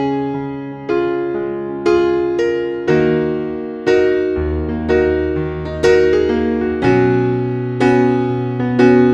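Background music: a piano or electric piano playing chords about once a second, each chord fading before the next, over held bass notes.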